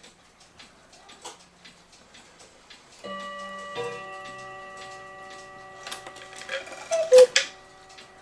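1986 8-day cuckoo clock movement ticking, then striking the half hour about three seconds in: a single two-note cuckoo call, higher then lower, with a gong ringing on underneath. A few sharper mechanical clicks follow near the end.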